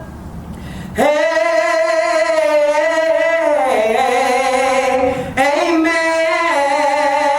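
A woman singing a slow gospel song, holding long notes with vibrato. There is a short break about a second in and a new phrase partway through.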